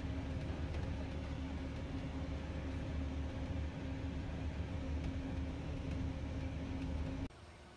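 Disneyland Mark VII monorail running, heard from inside the cabin: a steady low rumble with a constant hum. It cuts off suddenly near the end.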